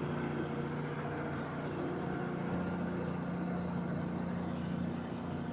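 Old excavator's diesel engine running steadily at a constant speed.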